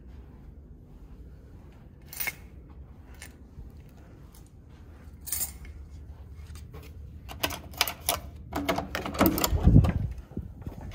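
Hotel room door being unlocked and opened: a few single clicks, then a quick run of clicks and clacks from the key-card lock and metal lever handle, ending in a heavy knock as the door is pushed open near the end.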